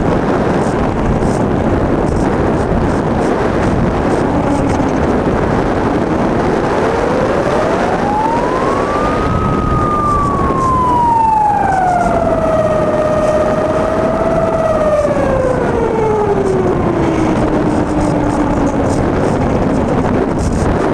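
Steady rushing wind and motor noise heard from the onboard camera of an electric RC plane with a brushless motor. Across the middle, a single pitched tone glides up over about four seconds, then slowly sinks back down over the next nine.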